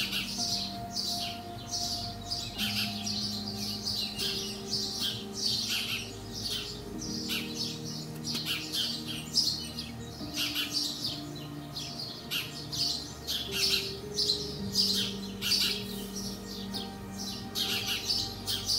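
Small birds chirping over and over, about two short high chirps a second, over soft held tones of background music that change pitch every few seconds.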